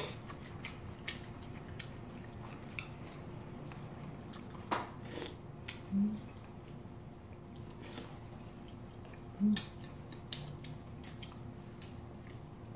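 Close-up eating sounds: cold noodles being slurped and chewed, with chopsticks clicking against the bowls. Two short low hums stand out, about six and nine and a half seconds in.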